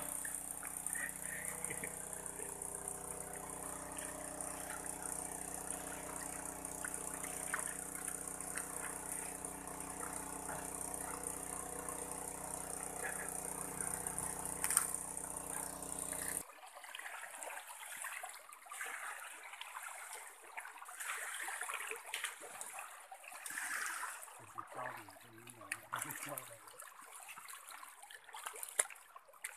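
Steady drone of the small motor pump draining the stream pool, with faint splashing in the mud. About halfway it cuts off abruptly and gives way to quieter trickling and splashing of shallow water.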